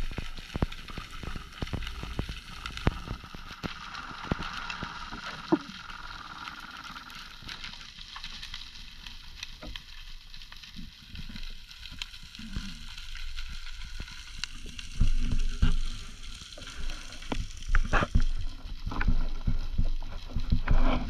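Underwater sound picked up by a camera in its waterproof housing: many scattered clicks and crackles over a steady wash of water noise, with low knocks and rumbles from the diver's movement that grow louder in the last few seconds.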